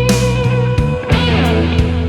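Background music: an instrumental passage of a song, with guitar over a steady bass line and drum hits.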